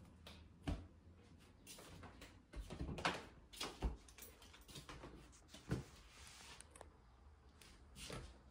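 Footsteps and handling knocks from someone walking with a handheld camera through small, bare rooms: scattered soft knocks and clicks, the loudest around three to four seconds in and again near six seconds, over a faint low rumble.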